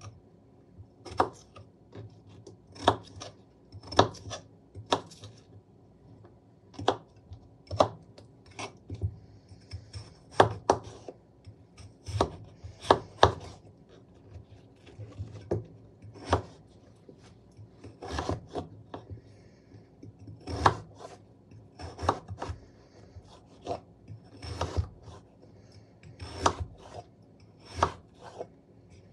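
Kitchen knife cutting peeled raw potatoes, a run of irregular sharp chopping strikes about one or two a second.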